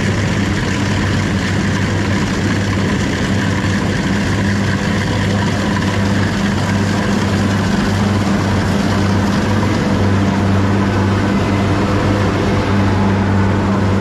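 Engine of a farm machine running steadily at constant speed, a loud unbroken hum with a noisy mechanical wash over it.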